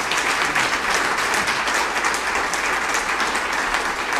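Audience applauding: many people clapping steadily in a room.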